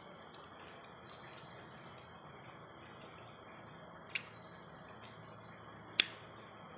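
Insects trilling steadily in the background, high-pitched, with two sharp clicks, one about four seconds in and a louder one about six seconds in.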